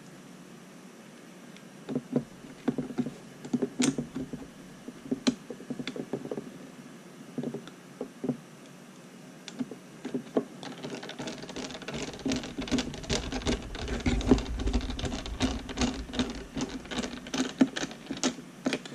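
A screwdriver driving screws into the plastic back case of a Turnigy TGY-i6 radio transmitter as it is put back together. Scattered clicks and knocks start about two seconds in, then from about halfway a denser run of small rapid clicks and scraping with a low rumble.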